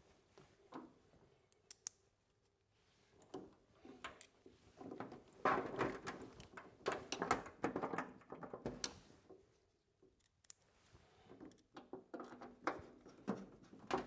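A pipe bend being screwed back into a steam humidifier's housing by hand: faint, irregular scraping and clicking of parts being handled and turned. A couple of single clicks come first, then two stretches of handling with a short pause between.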